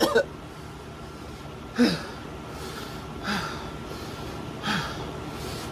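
A man breathing out hard three times, about a second and a half apart, each breath hissing and carrying a short falling voiced note: breathing through the burn of a super-hot chili made with Carolina Reaper and scorpion pepper.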